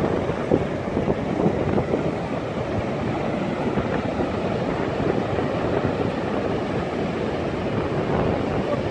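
Wind buffeting the microphone in a steady low rush with small gusts, over the wash of ocean surf.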